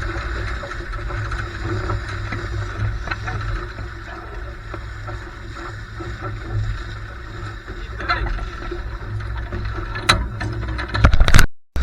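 Sailing dinghy under way in strong wind: wind buffeting the microphone as a low rumble, over the rush and slap of water along the hull. A few sharp knocks come later on, and a louder burst of wind or spray just before it cuts out briefly at the end.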